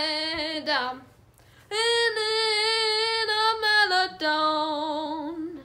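A boy singing unaccompanied, scatting the close of a jazz tune: a short sung phrase, a pause of under a second, then a long high held note that steps down to a lower wavering final note.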